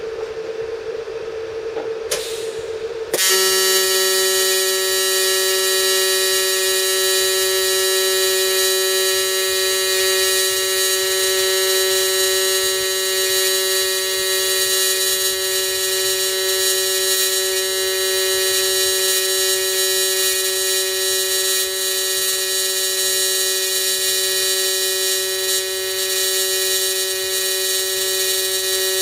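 AC TIG welding arc on thin aluminum from an Everlast 210EXT set to a triangle waveform at about 200 Hz AC frequency. It strikes abruptly about three seconds in, then holds a steady, even buzz as the bead is run.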